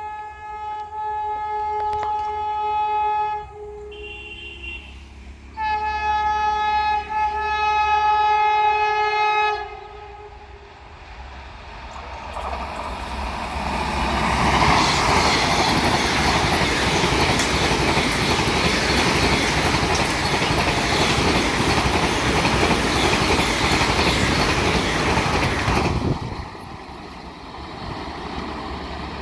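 Vande Bharat Express trainset sounding two long horn blasts, with a short higher note between them. Then comes the loud rush and wheel clatter of the train passing at high speed, which builds up and then drops off suddenly a few seconds before the end.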